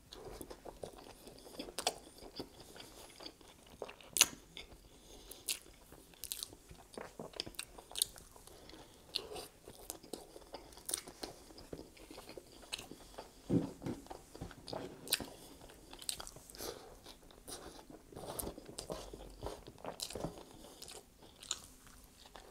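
A person biting and chewing a McDonald's Big Mac: soft wet mouth sounds broken by many small sharp clicks and smacks.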